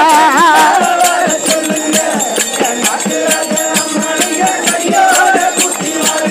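Instrumental break in a Tamil bajanai devotional song: hand drums beaten in a fast steady rhythm, about four to five strokes a second, with jingling percussion. A singer's wavering held note fades out in the first second.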